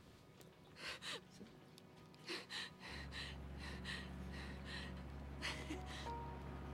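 A woman's sharp, upset breaths and gasps, close to crying, repeated several times. About three seconds in, a steady low engine drone from the departing boat sets in underneath.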